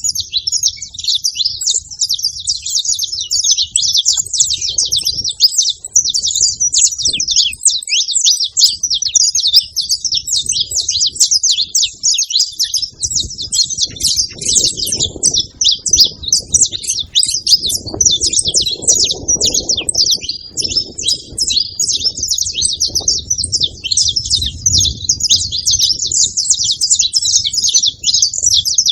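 A group of saffron finches chirping in a dense, rapid, unbroken chatter of short high notes, with a faint low rumble underneath from about halfway through.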